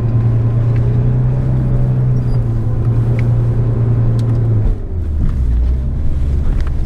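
Off-road SUV's engine running steadily, heard from inside the cabin. About two-thirds of the way through its pitch drops sharply and it settles into a lower drone, with a few faint rattles and clicks.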